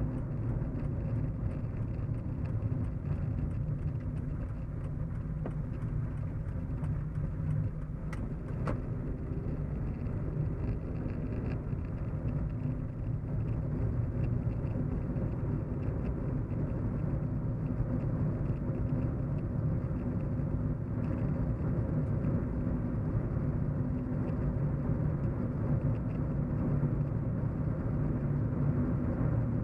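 Steady low road and engine hum inside a moving car's cabin, with no sharp changes.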